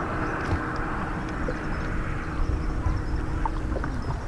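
Fishing boat running under way: steady outboard motor and water rush, with a faint steady hum that fades near the end.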